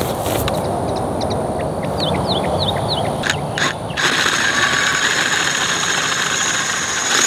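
Cordless right-angle drill boring a 3/4-inch bit into a steel pipe post, its motor running under load. About four seconds in, a high hissing whine of the bit cutting into the steel joins in. Birds chirp in the background early on.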